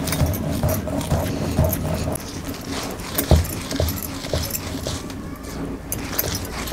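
Stone roller being rolled back and forth over a flat stone grinding slab (pata), crushing wet spice masala: uneven stone-on-stone scraping with short knocks, one sharper knock about halfway through.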